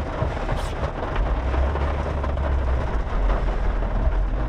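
Rain starting to fall, a steady hiss, with a low rumble joining about a second in.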